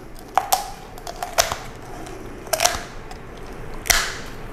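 Heavy-duty kitchen shears cutting through a raw chicken's rib bones along the spine: a run of sharp snips and crunches at irregular intervals, the loudest near the end.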